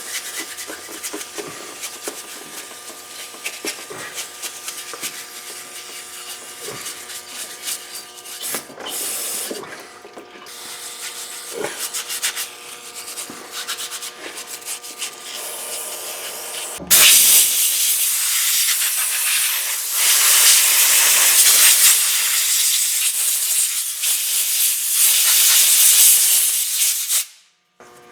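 Rubbing and wiping with a few light knocks. About 17 seconds in comes a loud, steady spray hiss lasting about ten seconds, which cuts off suddenly: spilled gear oil being sprayed clean.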